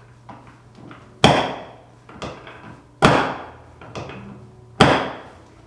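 A chiropractic table's drop section clacking down three times, about two seconds apart, each clack ringing briefly, with softer clicks between them as the section is reset.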